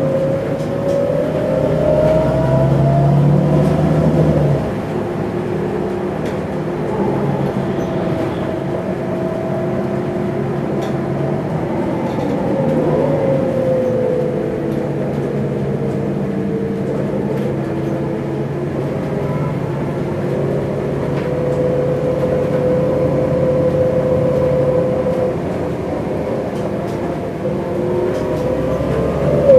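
MAN Lion's City CNG natural-gas city bus heard from inside while driving, its engine and ZF gearbox whining. The pitch rises as the bus accelerates, drops off about four and a half seconds in, then rises and falls with the driving and climbs again near the end.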